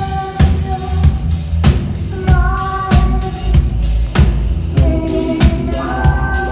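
A live band playing: a drum kit striking steadily under a bass line and held melodic notes, with some singing.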